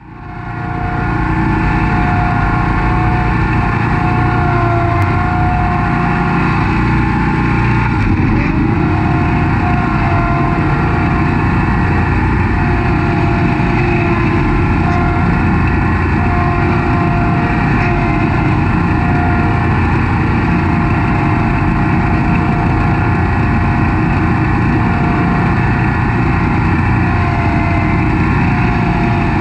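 Snapper Pro SS100 36-inch stand-on mower running steadily, engine noise with a steady high whine over it, fading in over the first second.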